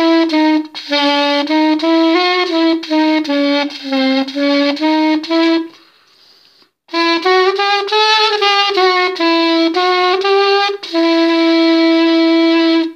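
3D-printed reed instrument, a recorder-style body fitted with a clarinet mouthpiece, B-flat clarinet reed and metal ligature, playing a melody of short notes. The player breaks off for a breath about six seconds in, then carries on and finishes on a long held note.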